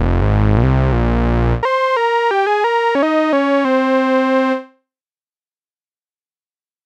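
GForce Oberheim SEM software synthesizer: a deep, thick low passage, then from about a second and a half in a single line of short notes that ends on a held note and fades out near five seconds, followed by silence.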